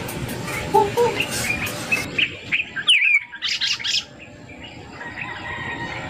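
Small birds chirping: a run of quick, short, high chirps and twitters over a steady background hiss.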